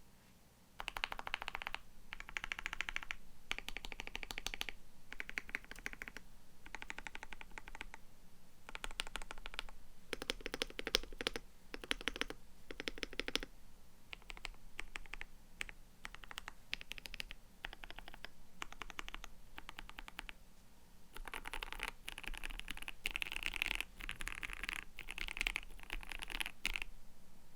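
Typing on a KBD67 Lite mechanical keyboard with lubed Durock Koala tactile switches and DCP-profile PBT keycaps: rapid runs of keystroke clacks in bursts, with brief pauses between words.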